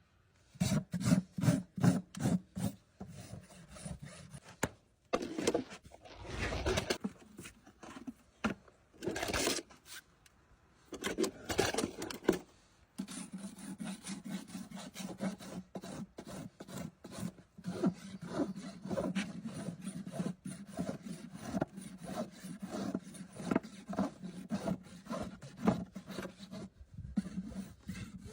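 Farrier's rasp filing a horse's hoof in repeated back-and-forth strokes, about three a second at first, with a few longer strokes and short pauses in the middle, then quick continuous rasping.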